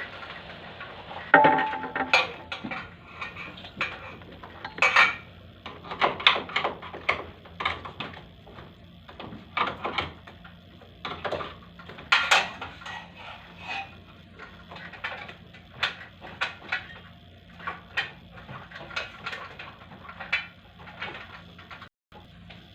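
Irregular clatter of hard objects being handled: a string of sharp clicks and knocks, loudest about a second and a half in, again around five seconds and around twelve seconds, over a faint steady low hum.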